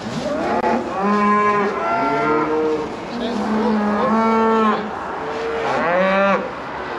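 Several beef cattle bellowing, overlapping calls of about half a second to a second each, one after another. The cows are calling for their calves, which have just been separated from them.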